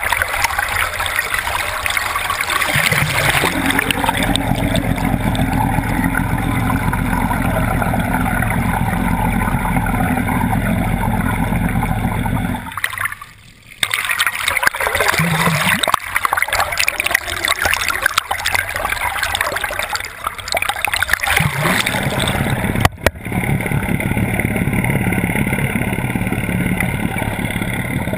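Water rushing and gurgling over a camera held at the water's surface from a moving motorboat, with the boat's motor running underneath. The sound cuts out sharply for about a second in the middle and again briefly near the end.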